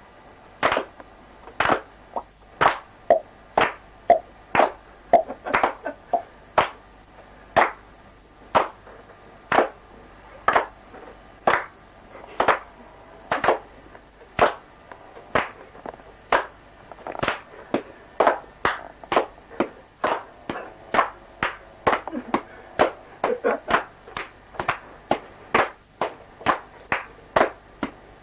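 Sharp hand-made percussive hits, claps or snaps, in a steady beat of about one and a half a second, turning denser with doubled hits in the last third, laid down as a rhythm overdub.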